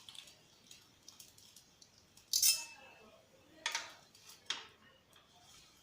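Metal utensil clinking and scraping against a frying pan three times, the first the loudest with a short ring.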